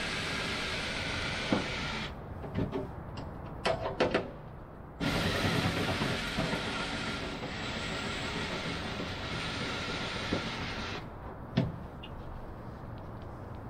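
Cordless drill running steadily in two long runs, reaming out bolt holes in wood that have gone tight as the wood swelled. The first run stops about 2 seconds in and the second runs from about 5 to 11 seconds in. Between and after the runs come a few sharp knocks and clicks of the drill being handled against the wooden structure.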